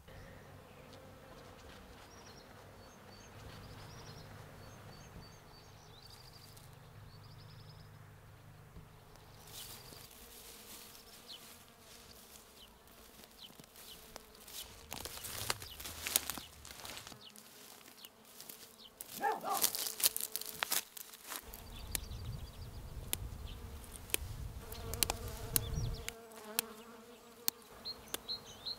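Insects buzzing steadily, with dry rustling and crackling in the grass through the second half.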